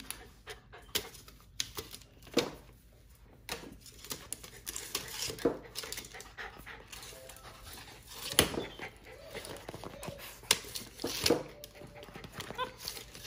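Steel tape measure being handled: scattered, irregular clicks and knocks as its blade flexes and rattles and the case bumps against the plastic high chair.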